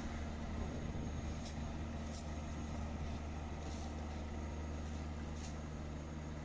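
Steel road roller's diesel engine running steadily, a low even drone, as it compacts the chippings on the road shoulder.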